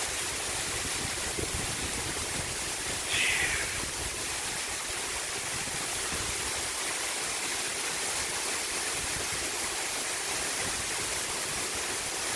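Heavy thunderstorm rain pouring down steadily, with a short high falling sound about three seconds in.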